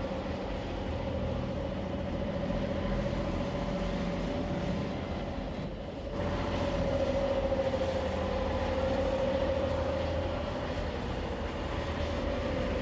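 Freightliner Cascadia semi-truck running on the road: a steady low rumble with a steady whine over it. The sound dips briefly about six seconds in, then picks up again.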